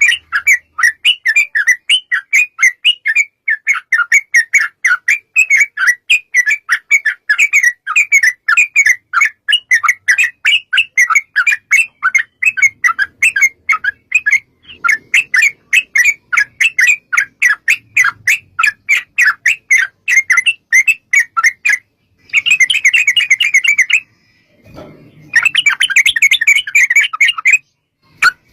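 Yellow-vented bulbul (trucuk) chattering in a long, fast run of sharp chirps, several a second. After two short breaks it ends in two denser bursts.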